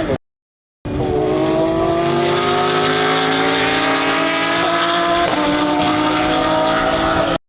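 Racing car engine at high revs, its pitch slowly rising as the car accelerates. The sound drops out completely for about half a second near the start and cuts off just before the end.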